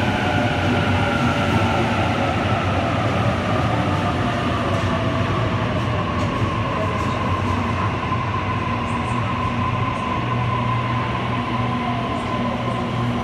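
Sydney Trains Tangara electric train braking to a stop at a covered platform: a steady low rumble with the motor whine falling slowly in pitch as it slows.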